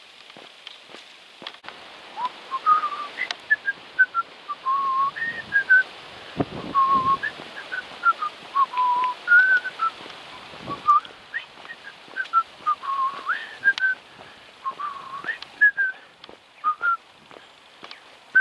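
A person whistling a tune: a long run of short notes stepping and sliding up and down, starting about two seconds in.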